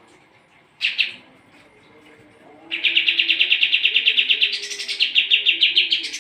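Kapas tembak singing: a short call about a second in, then a long, rapid chattering trill of about eight notes a second that steps up in pitch partway through.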